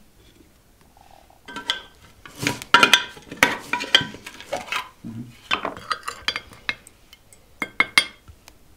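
Crockery and cutlery clinking and clattering: a run of sharp knocks with short ringing tones that starts about a second and a half in and stops just before the end.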